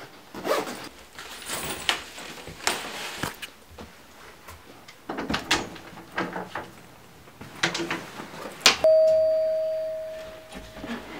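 Rustling and knocking as a backpack is handled and carried, then a click and a single bell-like chime that rings out and fades over about two seconds.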